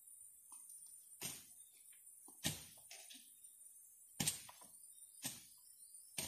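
A hand tool chopping through grass and into the ground in slow, regular blows, five strikes about a second apart, over a steady high hiss.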